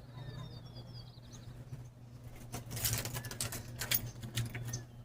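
Small birds chirping and twittering in quick high notes for the first second and a half, then a run of sharp, irregular clicks and rattles from about halfway through, over a steady low hum.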